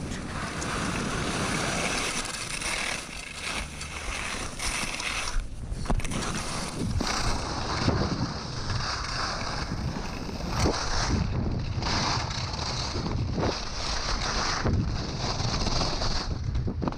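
Skis scraping over icy, hard-packed snow while skiing downhill, with wind rushing across the action camera's microphone; now and then a sharper scrape cuts through.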